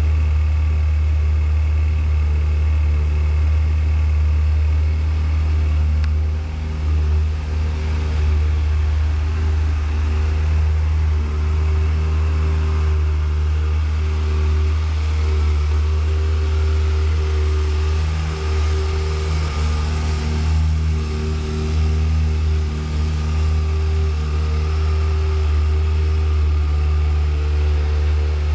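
Ferrari F355's 3.5-litre V8 idling steadily.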